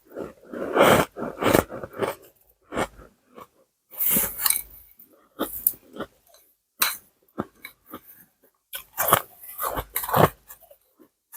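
A person chewing ice close to the microphone: irregular crunches, heaviest in clusters about a second in, around four seconds in, and again about nine to ten seconds in, with smaller crunches between.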